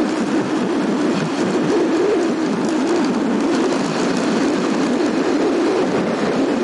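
Steady running noise of a motorbike under way, engine and rushing air together, its low note wavering slightly as the throttle shifts.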